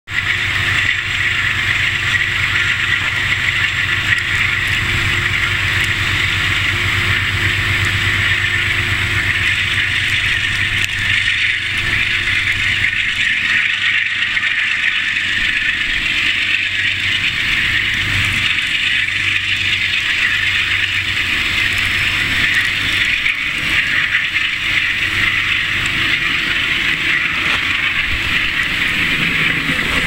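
Passenger train coaches rolling past on snow-covered track: a steady hiss and rumble of the train in motion, with a low drone underneath that fades out a little over twenty seconds in.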